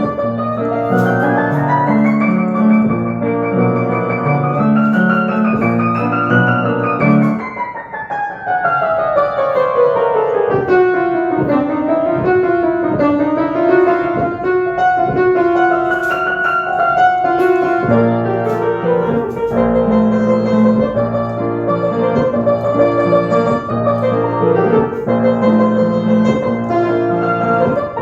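Piano-voiced keyboard music: a melody over low chords in the left hand. About seven seconds in the accompaniment drops out and a single line runs down in a long descending scale; near eighteen seconds the chords come back in under it.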